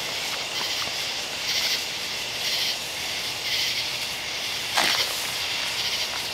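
A large mass of burning black snake fireworks giving off a steady hiss that swells in short surges about once a second, with one sharp pop about five seconds in.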